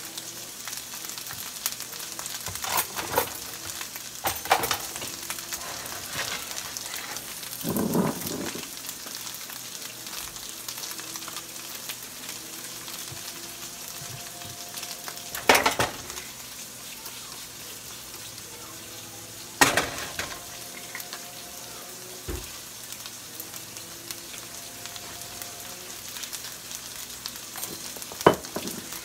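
Rice frying in a hot skillet with a steady sizzle of oil. A few sharp knocks of utensils or things set down cut through it every several seconds.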